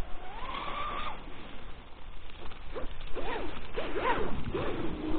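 Motor whine of a Genesis electric RC catamaran running on a 6S battery. The whine climbs in pitch early on, then rises and falls quickly several times from about halfway through as the boat is throttled and turned.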